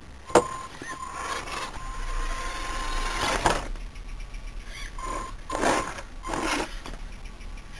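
Small electric RC car running over concrete in short bursts of motor and tyre noise, with a sharp knock about half a second in.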